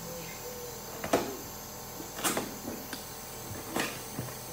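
Knocks and scuffs of a large cardboard box being handled on the floor, three sharp knocks with light rustling between them, the first the loudest, over a steady faint hum.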